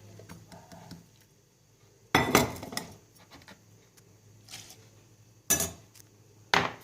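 Metal spoon clinking against a cup as a spoonful of sugar is added and stirred into the drink. There are three sharp clinks, about two seconds in, about five and a half seconds in and near the end, with lighter taps between them.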